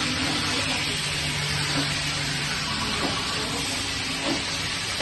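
Chicken pieces frying in hot oil in a pan, a steady sizzle.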